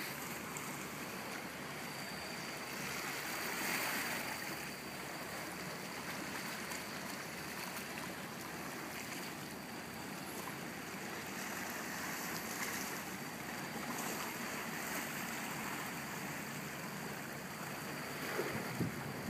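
Small sea waves washing and lapping over shore rocks: a steady hiss of moving water that swells briefly about four seconds in.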